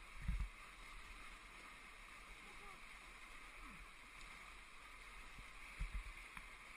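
Rushing whitewater rapids, a steady hiss, with two dull low thumps, one just after the start and one near six seconds in.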